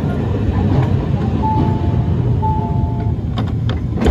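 Inside a Hiroshima Electric Railway 1000 series Green mover LEX tram standing at a stop: a steady low rumble from the tram, an electronic chime sounding twice, then a few clicks and a knock near the end, the doors closing before departure.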